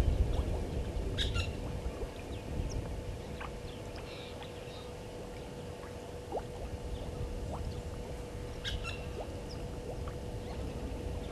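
Open-air bush ambience: a low, uneven rumble, most likely wind on the microphone, under a faint steady tone, with a few short bird chirps, a cluster about a second in and again near nine seconds.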